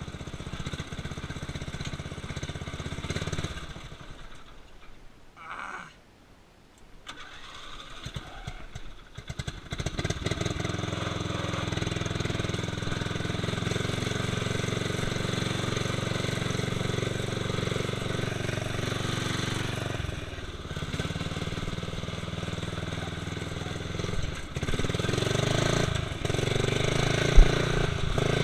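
Murray lawn tractor's engine running, then dying away for a few seconds before it is cranked, catches and runs steadily again. The pitch shifts a couple of times, and there is one sharp knock near the end.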